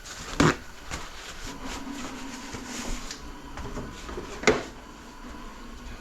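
Transmission parts being handled on a workbench: two sharp knocks, about half a second in and again near the end, among lighter clicks and clinks, with a faint steady hum in the middle.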